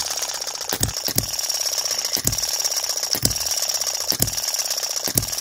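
Miniature hit-and-miss petrol engine running, firing with a sharp pop about once a second and coasting between, with a fast light mechanical ticking underneath. A light knock is still there, which the owner puts down to wear at the small end of the conrod.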